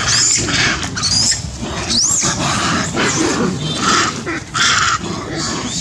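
Long-tailed macaques screaming in a fight: a rapid run of harsh, high shrieks, with a few sharp squeals that rise and fall in pitch in the first couple of seconds.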